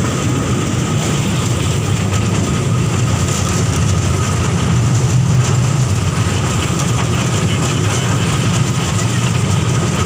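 Museum toy train running steadily: a continuous low rumble with a faint steady high tone over it.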